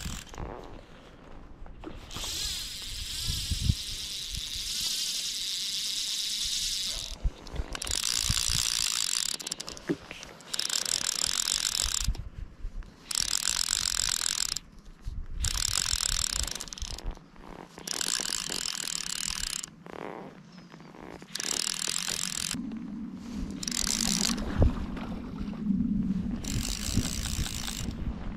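Fly reel's click-and-pawl ratchet buzzing in about ten spells, the first about five seconds long and the rest a second or two each, as a hooked rainbow trout is played on a bent fly rod.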